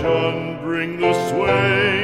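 Background music: a classical, operatic-style song sung with a strong vibrato.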